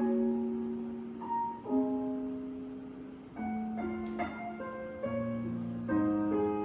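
Slow solo piano intro of a Mandarin pop ballad, sustained single notes and soft chords, played back through a Panasonic JX900 television's speakers.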